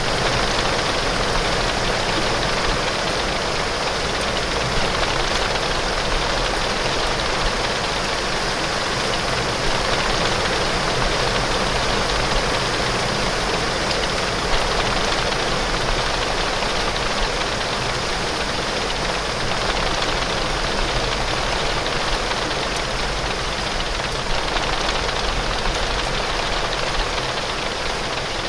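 Heavy rain falling steadily on a window pane: a dense, even hiss with a steady low rumble underneath.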